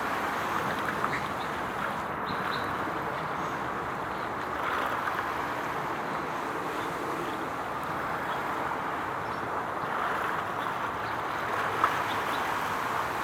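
Steady outdoor water noise with gentle swells every two to three seconds, like small waves washing along the shore, and one sharp tick near the end.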